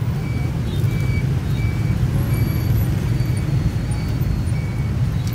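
Dense rush-hour motorbike and car traffic running past close by as a steady low rumble. A faint, short high beep repeats at an even pace throughout.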